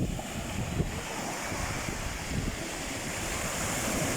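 Sea waves washing on the shore in a steady surf hiss, swelling a little toward the end, with wind buffeting the microphone in low rumbles.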